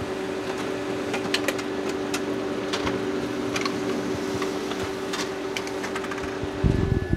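Brother MFC printer printing a page: a steady mechanical hum with scattered ticks and clicks as the sheet feeds through. A few heavy low thumps near the end.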